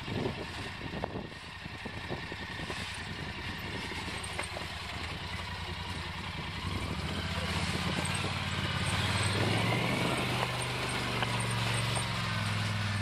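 ATV engine running at low speed as the quad crawls over rocks, growing steadily louder as it comes closer, with occasional knocks in the first half.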